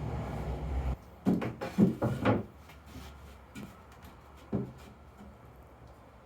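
A low steady running noise cuts off about a second in. It is followed by a quick cluster of loud hollow wooden knocks and clunks, then one more knock a couple of seconds later, as pieces of plywood and lumber are handled on the bench.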